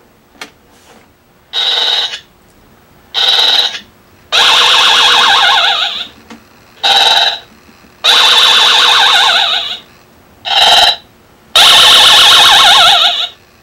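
Recorded horse whinnies and neighs played back through the horse bike's sound box, an amplifier recorder board with a paper-cone speaker, set off by a push button. Seven separate calls come in turn, some short and some about two seconds long, the long ones with a quavering pitch.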